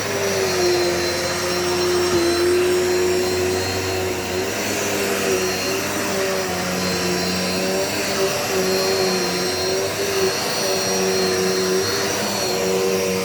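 Dirt Devil Multi-Surface vacuum cleaner (model UD76210V) running steadily, a motor hum with a faint high whine, its pitch wavering slightly.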